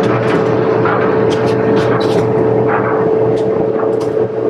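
Amana electric clothes dryer running with its back panel off, started moments earlier for a test run: a steady hum and rumble from the motor and turning drum, with scattered light ticks.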